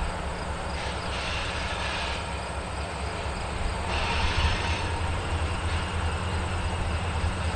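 Distant freight train's diesel locomotives approaching: a low, steady rumble that grows a little louder about halfway through.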